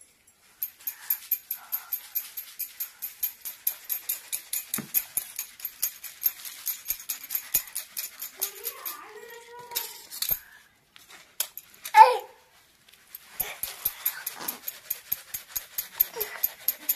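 Rice flour being sifted through a round metal sieve, shaken in a steady rhythm of light scraping ticks about four a second. The ticks pause for a few seconds around the middle, where a short pitched cry near the twelve-second mark is the loudest sound.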